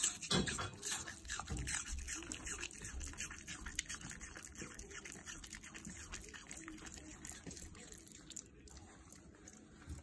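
A Shiba Inu crunching and chewing a piece of apple: rapid, wet crunches, loudest in the first couple of seconds and growing fainter toward the end.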